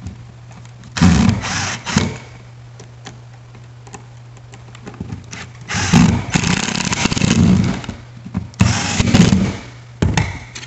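Cordless power driver running in several short bursts, the longest about two seconds, driving the mounting screws of a duplex receptacle into a wall box.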